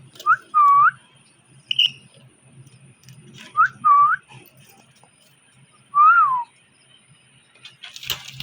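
Pet parrot whistling: a short rising note followed by a loud swooping whistle that dips and rises, the same pair again about three seconds later, then a single whistle that rises and falls. A brief clatter near the end.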